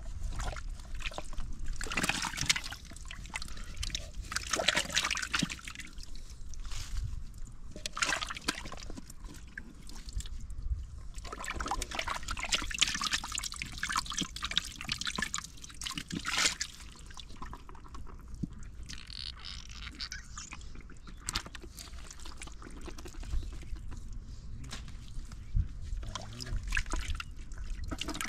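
Muddy water being scooped out of a hole with a metal bowl and poured off, sloshing and trickling in irregular bursts.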